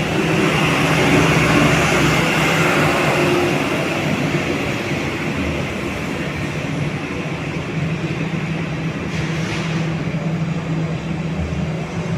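Aircraft taxiing: a steady engine hum and rumble, a little louder during the first few seconds.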